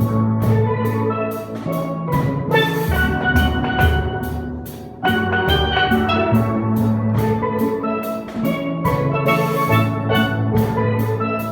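Steel pans playing a tune together, a fast run of struck, ringing notes over a low bass line with a steady beat. The playing eases briefly about five seconds in, then comes back in full.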